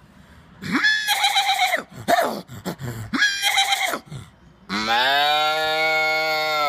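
A man imitating a cow mooing with his voice: a few short calls, then one long, steady lowing call held for about two seconds near the end.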